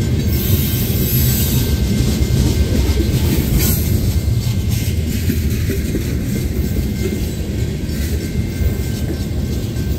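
Freight train's tank cars rolling slowly past close by: a steady, loud low rumble of steel wheels on the rails, with a few sharp clicks from the wheels and rail joints.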